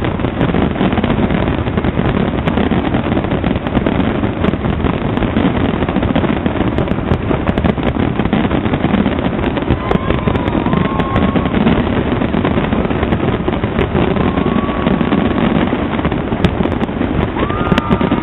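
A dense, continuous barrage of fireworks: rumbling bursts and crackling with many sharp pops, and a few short rising whistling tones from about ten seconds in and near the end.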